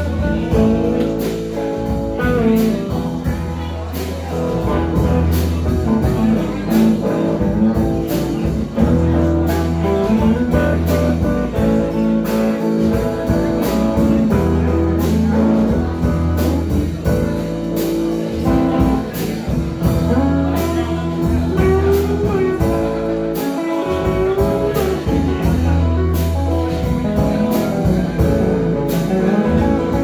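Live band playing a blues-rock tune on electric guitars, bass and drum kit, with bending lead guitar lines over a steady beat.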